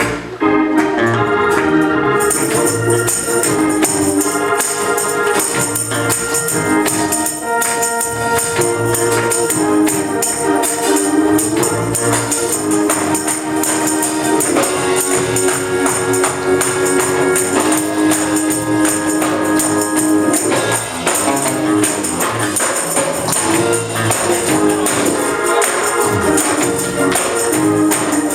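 Gospel music on a church organ, held chords shifting every second or two, with a tambourine jingling in rhythm from about two seconds in over a regular low beat.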